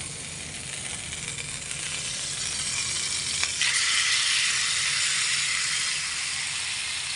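Butter sizzling in a nonstick frying pan. About three and a half seconds in there is a light click as marinated chicken is tipped in from a glass bowl, and the sizzle grows louder and brighter.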